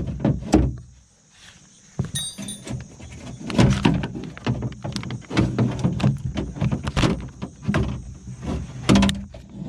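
Metal window regulator clattering and knocking against the inside of a car door's sheet metal as it is worked out through the access hole, a brief scrape or squeak about two seconds in and a heavier knock near the end.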